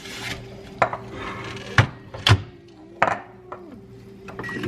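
Kitchen utensils and dishes knocking and clattering: four sharp knocks roughly a second apart.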